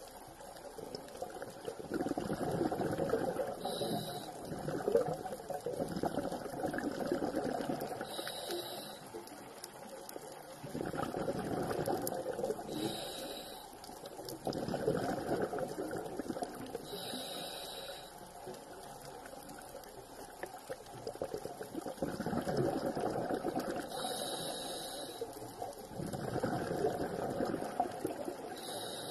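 Scuba diver breathing through a regulator underwater: a short hissing inhale followed by a rush of exhaled bubbles, repeating about every four to five seconds.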